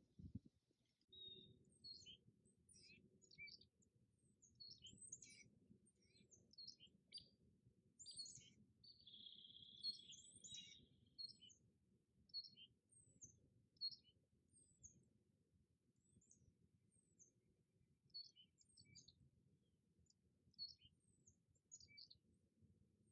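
Small birds chirping faintly: many short, falling chirps come and go throughout, with one steadier note lasting about two seconds near the middle. A faint low rumble sits underneath.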